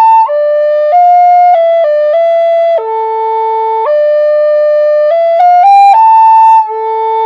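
A recorder playing a short tune, note after note, with a long low note a few seconds in, a quick rising run near the end, a high held note and a final low one. It is blown with the same breath pressure on every note instead of regulating the breath for each one, so the tone does not come out right.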